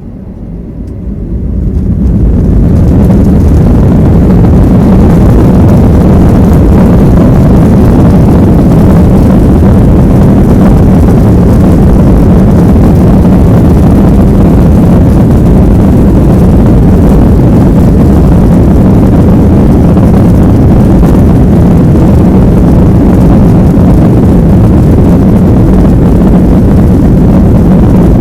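Boeing 737-800's CFM56-7B jet engines spooling up to takeoff thrust over about two seconds, then running loud and steady through the takeoff roll, heard from inside the cabin.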